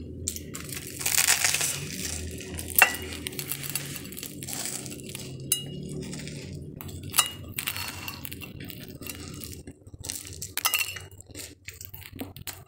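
Ceramic plate clinking: a handful of sharp knocks, each with a short ring, as food is handled over it, with softer rustling and handling noise in between.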